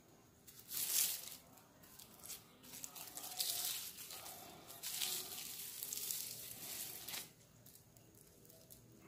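A cord of twisted blue strips and dried banana-stem fibre being rolled and rubbed by hand against bare skin, making rasping, rustling strokes: a short one about a second in, then longer ones from about three to seven seconds.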